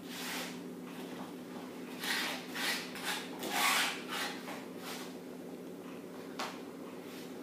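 Knife blade scraping across a floured wooden pastry board, gathering loose flour toward shortcrust dough. There are a handful of short scrapes, most of them in the first four seconds and one more near the end.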